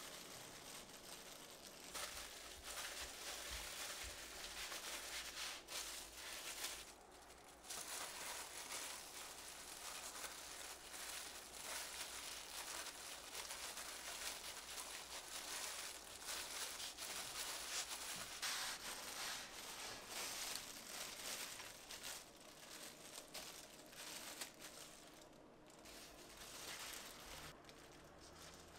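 Thin disposable plastic gloves crinkling and rustling steadily as the hands press filling onto seaweed and roll up a gimbap.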